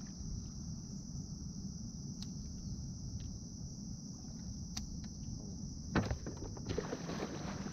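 Steady high-pitched insect chorus over a constant low rumble. About six seconds in there is a knock, followed by a rougher rustling noise.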